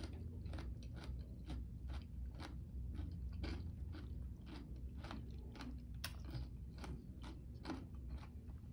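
A person chewing a crunchy mouthful of raw jalapeño stuffed with vegan cream cheese and Takis, with a soft crunch about twice a second.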